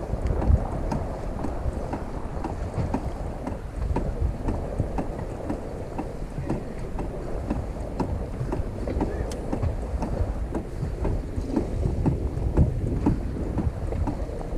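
Wind buffeting the microphone over choppy lake water lapping and slapping against a boat's hull, with frequent small knocks and splashes.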